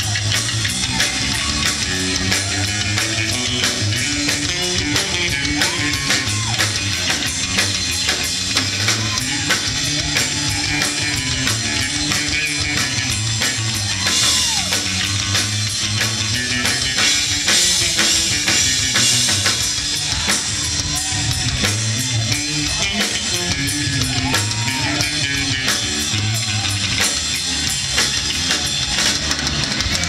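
Live rock band playing electric guitar, bass guitar and drum kit, the guitar bending notes up and down. The cymbals grow louder and brighter for several seconds in the middle.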